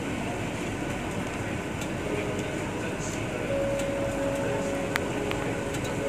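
Steady background din with faint voices and a few light clicks, and a faint steady tone that comes in about halfway through.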